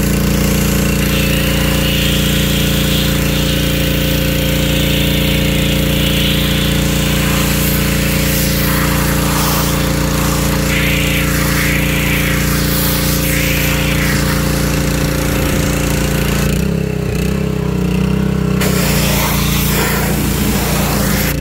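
Pressure washer running steadily, its motor and pump humming under the hiss of the high-pressure water jet spraying the car's painted steel body. A little after sixteen seconds in, the hiss drops away for about two seconds while the hum carries on.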